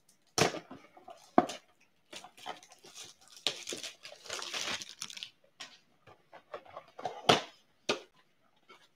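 Clear plastic shrink wrap crinkling and tearing as it is stripped off a cardboard hockey-card blaster box, with a few sharp cracks and the densest crinkling in the middle. Near the end the box's cardboard flap is torn open.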